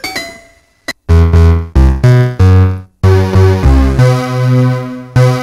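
Dentaku OTOTO synthesizer board played by touching fruit wired to its touch inputs. A single pitched note rings and dies away, then from about a second in a run of loud, low synth notes steps up and down in pitch, ending on a longer held note.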